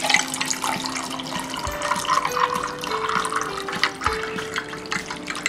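Kokam sharbat poured in a steady stream into a glass tumbler over ice cubes, splashing and filling, with soft background music underneath.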